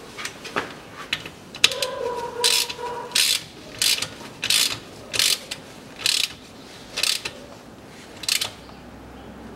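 Ratchet wrench turning the square-drive drain plug back into a rear differential housing: a few loose clicks, then a run of about eight even ratchet strokes, one every 0.7 s or so, each a quick burst of pawl clicks.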